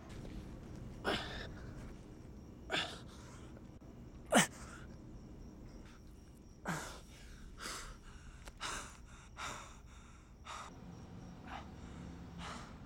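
A person's sharp breaths and gasping exhales, about ten of them at irregular intervals. A few slide down in pitch, and the loudest comes a little past four seconds in.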